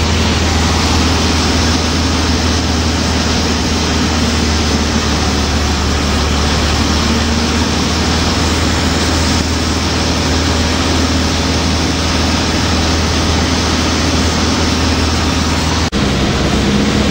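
Cessna 152's four-cylinder Lycoming O-235 engine and propeller running steadily in flight, with a loud rush of air, heard inside the cabin. A momentary dropout near the end.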